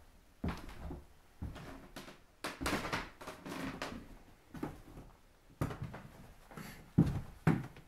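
Slow footsteps and knocks in a small room, about one a second, with a longer rustling or scraping stretch about three seconds in.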